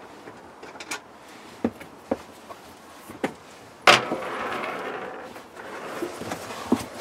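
Car carpet being handled and fitted over a bare metal floor: a few light knocks and taps, then one sharp knock about four seconds in followed by a second or so of rustling and scraping as the carpet is pushed into place.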